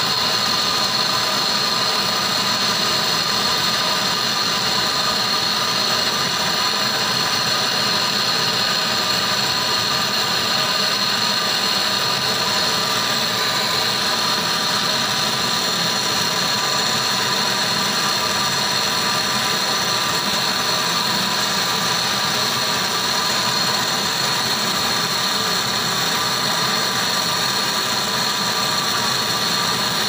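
Handheld gas torch flame hissing steadily while it heats a copper refrigerant tube at a refrigerator compressor for brazing.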